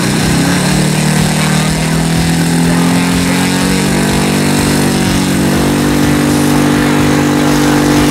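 The engine of a large radio-controlled scale model airplane running on the ground, spinning its propeller; its pitch rises over the first second or two as it is throttled up, then holds steady at high revs.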